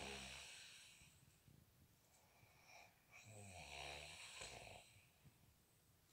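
A man snoring in his sleep: a snore fading out at the start, then another full rasping snore about three seconds in, in a slow rhythm of about one every four seconds.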